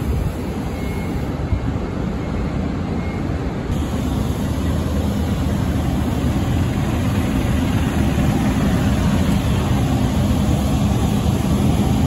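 Engine of a large truck or bus running close by, a steady low noise.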